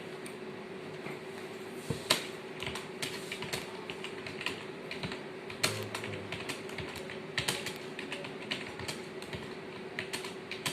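Typing on a computer keyboard: irregular keystroke clicks, louder from about two seconds in, over a steady low hum.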